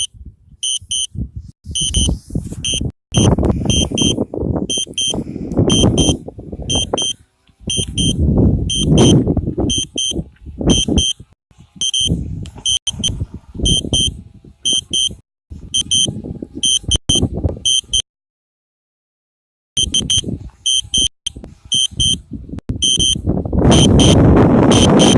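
Wind buffeting the microphone in loud, uneven gusts, under a high electronic beep that repeats about twice a second. The sound cuts out completely for a moment past the middle.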